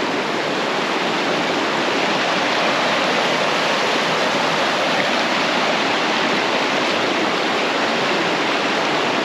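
A fast, swollen creek rushing loudly over rocks: a steady, even rush of water, high in volume after rain.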